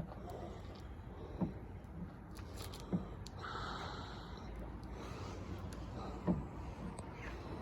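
Three short knocks of a bar-type lug wrench worked on a car wheel's lug nuts, over steady low rumbling background noise.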